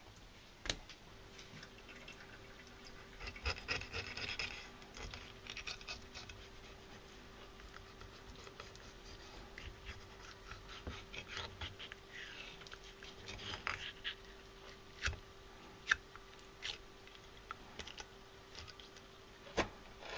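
Kitchen knife cutting the rib bones away from a spotted mackerel fillet on a plastic cutting board: faint scraping and scattered clicks and taps of the blade against the board.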